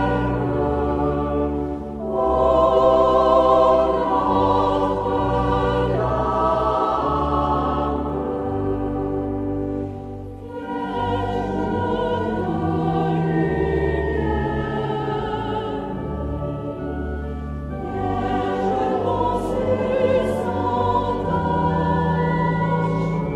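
Choir singing a French scout hymn to the Virgin Mary, with vibrato on held notes over a low sustained accompaniment, in phrases with short breaths between them.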